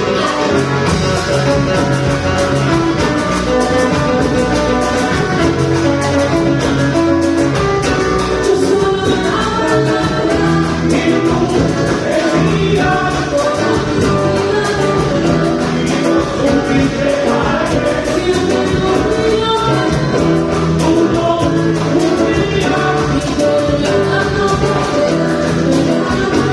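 Latin pop song: a lead voice singing over full band accompaniment with a steady percussion beat.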